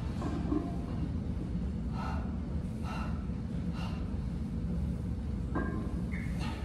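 Sharp breaths of a man doing heavy barbell back squats: short, airy exhales about two, three and four seconds in, over a steady low background rumble.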